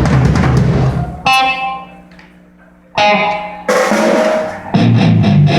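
Drum kit played loudly during a band's sound check, in short bursts of hits with a brief pause about two seconds in, some pitched ringing lingering after the hits.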